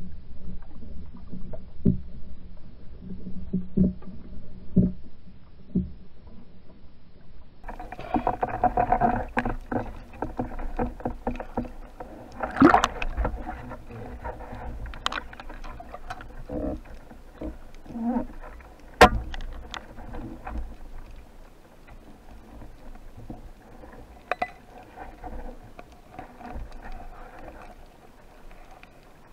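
Underwater handling noise as a speared sea bass is pulled in and grabbed: a low rumble with scattered knocks, then from about eight seconds in a louder rushing of water with sharp clicks, the strongest about 13 and 19 seconds in.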